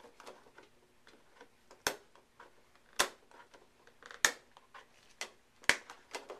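Stiff clear plastic clamshell packaging clicking and snapping as a hand presses and pries at it on a wooden desk: about half a dozen sharp clicks with fainter ticks between, the loudest about three and four seconds in.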